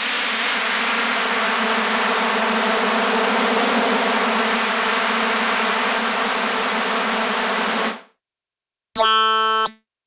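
u-he Hive 2 software synthesizer playing its "AZ The HIVE" effects preset: a dense, steady hiss with a low hum band beneath, held as a key is held down, cutting off sharply about eight seconds in. After a short silence, a brief bright pitched synth tone sounds near the end as the next preset is tried.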